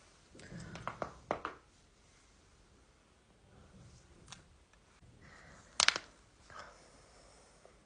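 Human joints cracking: a quick run of pops in the first second and a half, then single cracks spaced apart, the loudest a little before six seconds in.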